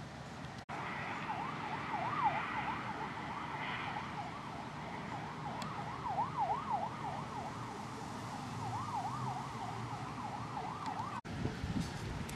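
Emergency vehicle siren in a fast yelp, its pitch sweeping up and down a few times a second over a steady hiss. It cuts in abruptly about half a second in and cuts off abruptly near the end.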